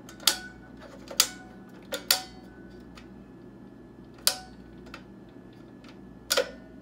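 Sharp mechanical clicks from the latch buttons and hinged tray doors of a metal three-bay 3.5-inch hot-swap drive enclosure being pressed and snapped: about six irregularly spaced clicks, two close together about two seconds in and a double click near the end, some leaving a brief metallic ring.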